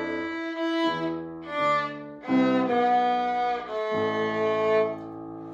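A violin and a piano playing together: a run of short bowed violin phrases separated by brief breaks, then longer held notes over piano chords.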